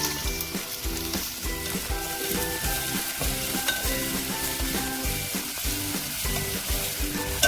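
Sliced onions sizzling as they are sautéed in coconut oil in a pan, under background music with a steady beat.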